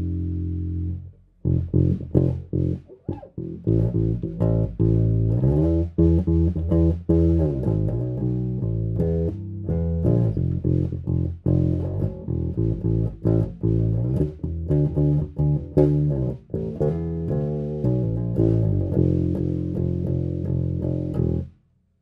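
Electric bass played clean through a Carvin BX700 bass amp head and Mesa Boogie cabinet, drive channel off. A held note dies away in the first second, then single notes are plucked one after another, stopping just before the end.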